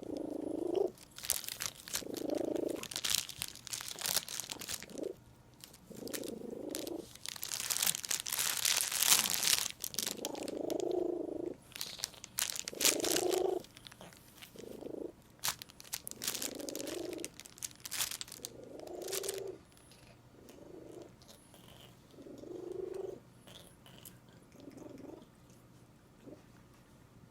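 A cat chewing and crinkling plastic gift wrap, the crackling coming in clusters that thin out after about 19 seconds. Between bites it makes short, odd vocal noises about every two to three seconds.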